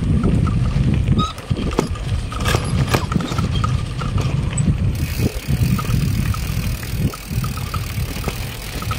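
Bicycle rolling over a rough dirt track: a steady low rumble from the tyres, with scattered knocks and rattles as the bike jolts over ruts and bumps.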